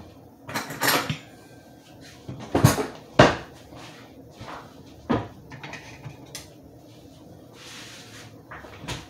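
Kitchen cupboard door and metal cutlery knocking and clattering as a fork and knife are fetched. The sound comes as a handful of separate sharp knocks, the loudest about three seconds in.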